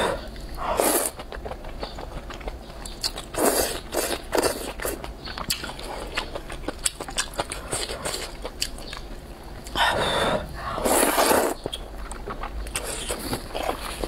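A person slurping rice noodles and broth from a bowl in several loud pulls, the longest about ten seconds in, with wet chewing and small clicks in between.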